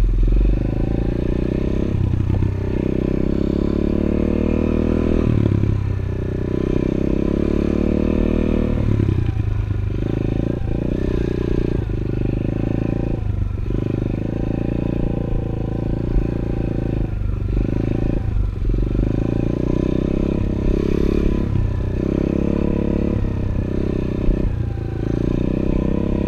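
A 110cc four-stroke pit bike engine running under way, the throttle opened and eased off again and again so the engine note keeps dropping briefly and climbing back.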